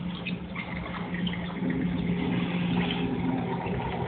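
Water poured from a plastic bucket into an aquarium, splashing and trickling into the tank, over a steady low hum from the aquarium's equipment.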